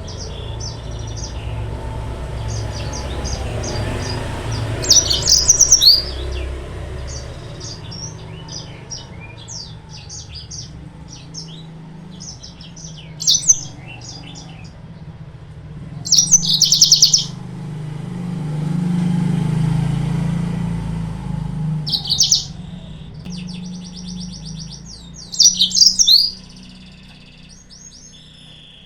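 Yellow-fronted canary (Mozambique canary) song: quick repeated chirps and trills, broken by several louder, rapid twittering bursts. A low rumble swells and fades twice underneath.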